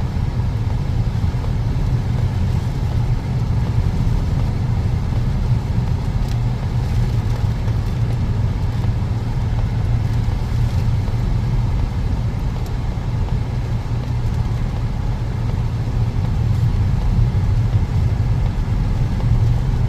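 Steady low rumble of a car on the road, heard from inside the cabin: engine and tyre noise, unchanging throughout.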